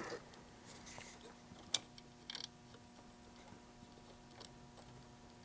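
Quiet workbench room tone with a faint steady electrical hum. Over it come a few small clicks and taps from handling a circuit board and soldering iron while soldering, with one sharper click a little under two seconds in.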